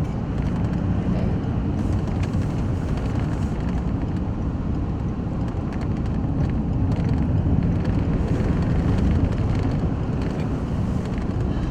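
Steady road and engine rumble inside a moving car's cabin, a low even drone with faint ticks.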